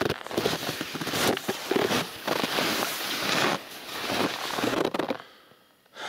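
Skis crunching and sliding over frosty packed snow in a steady stride, about one push a second, stopping about five seconds in.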